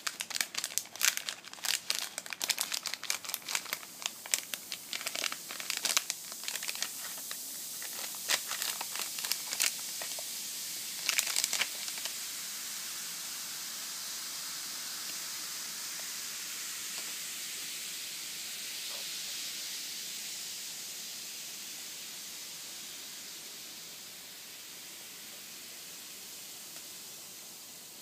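A foil sachet crinkles and tears, with dense crackling for about the first twelve seconds. Then comes a steady fizzing hiss, slowly fading, as the high-concentration carbonated bath powder reacts and releases CO2 in the basin of lukewarm water.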